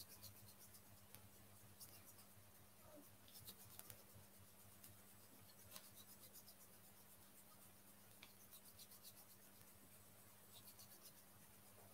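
Near silence: faint rubbing and small ticks of hands massaging each finger from base to tip, over a steady low hum.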